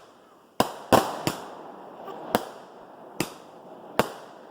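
Fireworks going off: six sharp bangs at uneven intervals over about three and a half seconds, the loudest about a second in, each trailing off in a brief echo.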